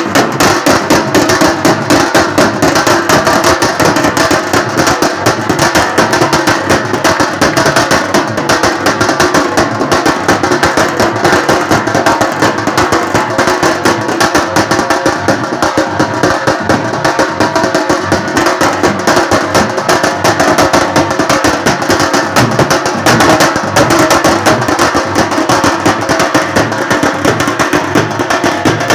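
Loud music with fast drumming.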